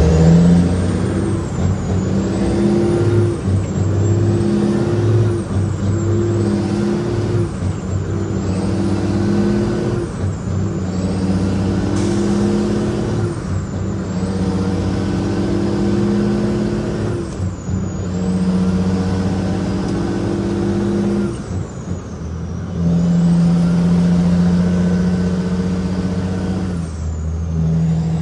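Cat 6NZ inline-six diesel in a heavily loaded Kenworth W900L, pulling steadily. Every few seconds the engine note breaks off and resumes as the driver shifts up through the gears, and a high whistle dips at each shift.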